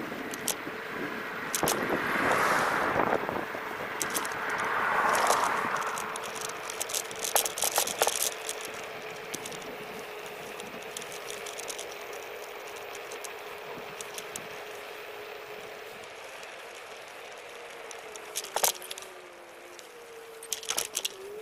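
Xplorer Ambassador electric scooter being ridden: a steady motor whine over tyre and wind noise, with frequent rattling clicks from the frame and handlebar over bumps. Two louder rushes of noise come about two and five seconds in, and the motor's pitch drops and wavers near the end as the scooter slows.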